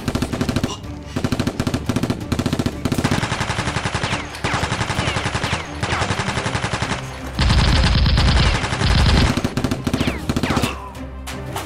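Repeated bursts of rapid machine-gun fire, a gunfire sound effect laid over a toy-blaster fight, with short gaps between bursts. The loudest, deepest bursts come a little past the middle.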